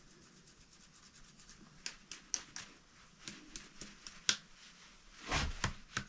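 A small stiff brush scrubbing out the groove of a chainsaw guide bar to clean the track: a run of short scratchy strokes that come quicker from about two seconds in, then a longer, heavier rub near the end.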